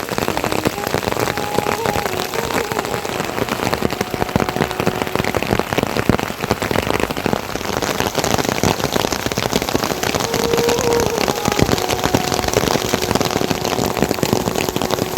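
Rain falling steadily, a dense patter of many drops striking a surface.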